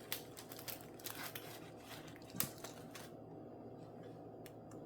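Handling noises: scattered small clicks and light rustling as a diamond-painting drill pen and its packaging are handled, with two sharp clicks near the end.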